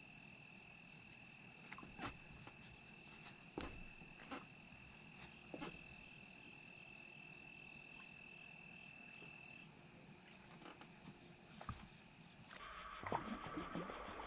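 Faint, steady high-pitched trilling of evening insects. A few short clicks and knocks from fishing tackle handling in a small boat come through it.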